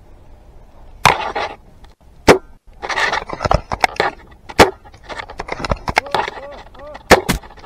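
Airsoft rifle shots: a string of sharp single cracks at uneven intervals, about a dozen in all, with scuffing and rustling in dry brush between them.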